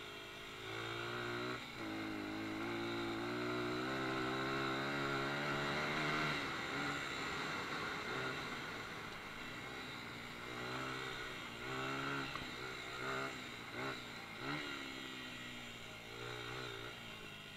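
Dirt bike engine being ridden on a trail: it revs up about a second in and holds a high, steady pitch for several seconds, then eases off. In the second half, several short bursts of throttle send the pitch up and down.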